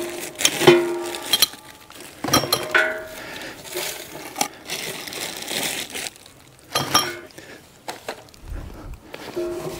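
Sharp metallic clinks and knocks as sheet-steel chimney pipe sections are lifted out from inside a steel cylinder wood stove. Several clinks come in the first three seconds and a couple more about seven seconds in.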